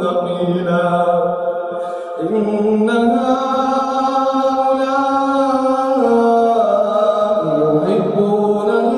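A man reciting the Quran in a melodic tajweed style, drawing out long held notes that step slowly in pitch. He breaks off briefly about two seconds in, then begins a new phrase.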